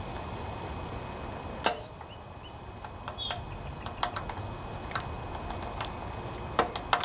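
Scattered sharp metal clicks and taps as the starter motor gear is worked by hand down the starter shaft, with one louder click about a second and a half in. A bird chirps in the background a few times.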